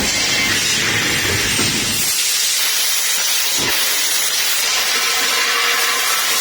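Laser tube cutting machine at work: a steady hiss, with a low machine rumble underneath that stops about two seconds in.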